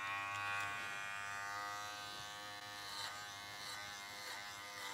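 Kenchii Flash 5 adjustable-blade dog clipper running with a steady electric buzz while it cuts through a Goldendoodle's thick, dirty coat, its pitch dipping slightly now and then under the load.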